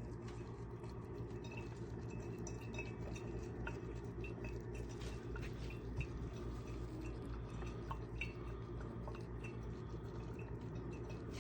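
OXO Brew 8-Cup drip coffee maker brewing: water dripping and bubbling in small irregular ticks over a steady low hum.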